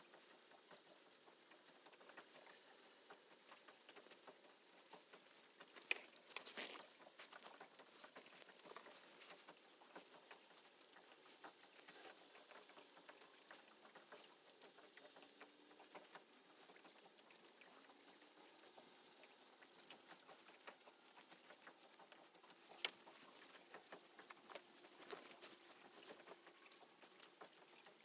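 Faint scattered clicking and rustling of a gillnet and crab shells being handled as edible crabs are worked out of the net's meshes. A few sharper clicks stand out, one about six seconds in and a couple near the end.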